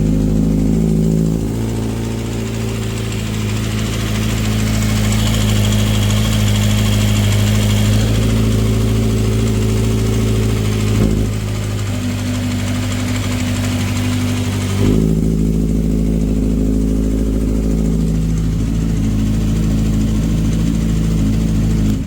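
2012 Kawasaki ZX-6R inline-four idling from a cold start, with a timing chain rattle caused by a loose cam chain tensioner. The idle note shifts slightly about 11 seconds in and again near 15 seconds.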